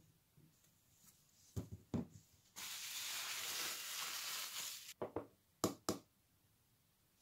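Plastic skincare tubes set down on a wooden desk with two knocks, then a steady rustle of clear plastic wrapping handled for about two seconds, then several sharp clicks as a fingernail taps the plastic lid of a cream jar.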